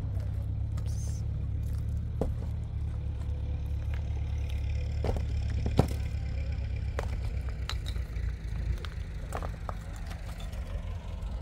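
An engine running steadily at low revs, with scattered sharp clicks and knocks over it.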